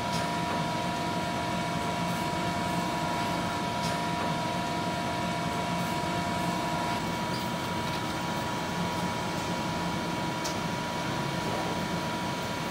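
Vision Wide VTEC NF 3232 double-column CNC machining centre running: a steady mechanical hum with a steady high tone throughout, and a lower tone that stops about seven seconds in.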